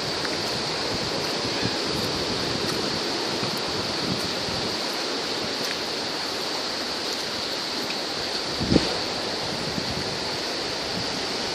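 Steady outdoor ambience: an even hiss, like wind or water, with a constant high-pitched buzz over it, and one brief low thump near the end.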